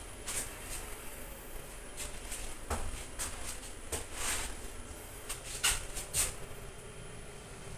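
Inside a Mitsubishi Nexiez machine-room-less elevator car travelling down: a steady low hum of the ride, with a few scattered soft clicks and knocks.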